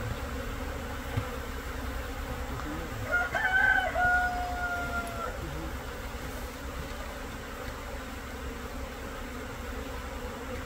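Swarm of Korean native honeybees (Asian honeybees) buzzing steadily as they crowd into the hive entrance. About three seconds in, a single drawn-out call of about two seconds stands out, the loudest sound.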